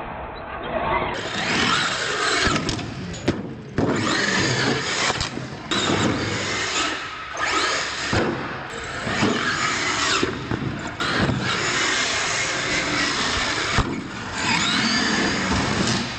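R/C monster trucks' motors whining up and down in pitch as the throttle is worked, broken by sharp clatters of the trucks landing and tumbling on the concrete and ramps.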